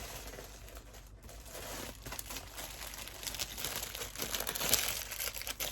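Packaging crinkling and rustling as a wrapped item is handled and opened, with a few tearing sounds; it gets busier and louder in the second half.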